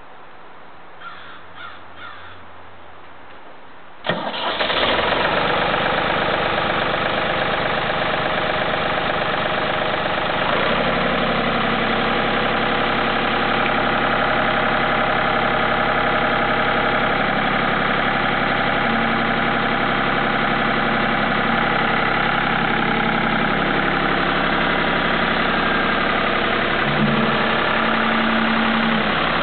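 Case 545D tractor loader's engine starting on a new battery and starter solenoid: it catches suddenly about four seconds in and runs steadily, settling into a steadier, fuller note around ten seconds in.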